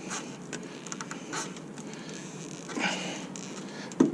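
Light clicks and short scrapes of a pair of grips working at a car's rear brake caliper, with one sharp knock near the end.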